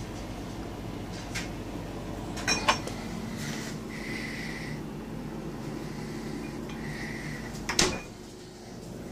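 A refrigerator being opened and rummaged: light knocks and rattles of bottles and items in the door shelves, a pair of sharp knocks about two and a half seconds in and a louder knock near the end, over a steady low hum.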